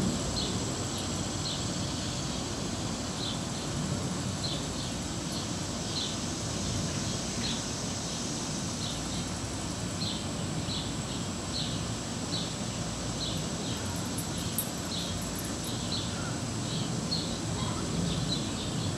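Outdoor garden ambience: short high chirps repeating about twice a second over a steady thin high whine and a low background rumble.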